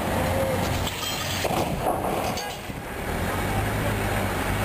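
A tall concrete tower toppling onto an excavator and a parked car: a noisy crash and rumble of falling concrete, with a steady low hum coming in a little after halfway.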